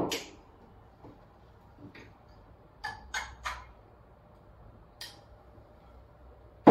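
Metal clicks and clinks of a high-pressure fill hose fitting and adapter being handled and fitted to a small air bottle: a sharp click at the start, a few light clinks about three seconds in, and a loud knock at the very end.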